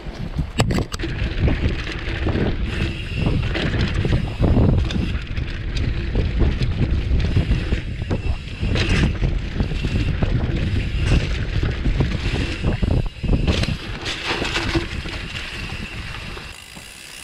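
Mountain bike riding fast down a dirt trail: wind buffeting the microphone, tyres rolling on dry ground, and the bike knocking and rattling over bumps. The rush eases off near the end as the bike slows.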